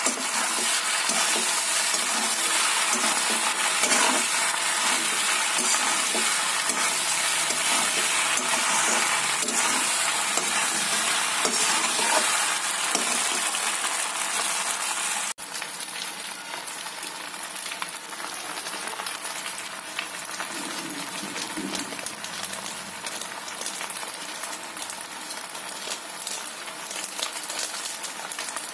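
Macaroni and chopped vegetables sizzling in oil in a metal kadhai as they are stirred with a spatula. The sizzle is louder for the first half, then drops to a lower, steady sizzle with light clicks about halfway through.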